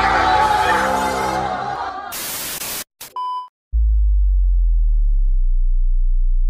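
Edited soundtrack: music for about two seconds, then a brief burst of static-like noise and a short high beep. Just before the middle, a loud, very deep steady hum starts abruptly and holds.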